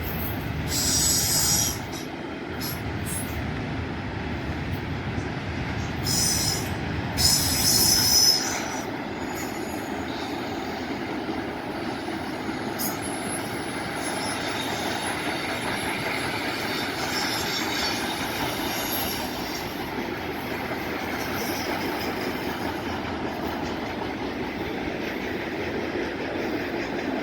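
Train cars rolling past with a steady rumble, the wheels squealing shrilly twice: briefly about a second in, then again about six to eight seconds in.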